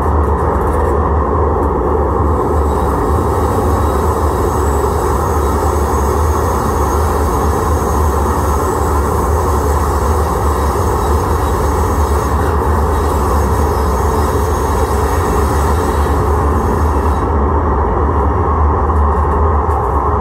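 Siemens-Duewag U2 light-rail car standing still, giving off a steady low hum and rushing noise; a fainter high hiss drops away near the end.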